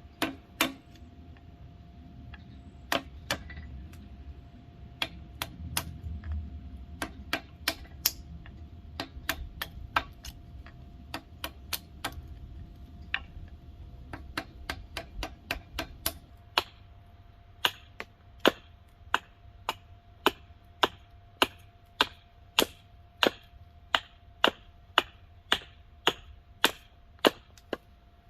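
Sharp knocks from hand-tool work on a hickory axe handle, struck again and again: irregular for about the first half, then a steady beat of just under two a second. A faint steady hum runs underneath.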